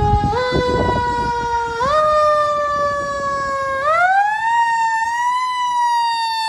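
Fire engine siren winding up. Its pitch climbs in a few steps over the first four seconds, then wails slowly up and down, with the truck's engine rumbling under it at the start.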